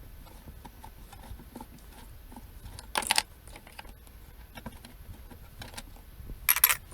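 Small metal clicks of a 5 mm Allen key working on bolts, with two short, louder bursts of metallic jingling and rattling, about three seconds in and near the end, as loose bolts are handled.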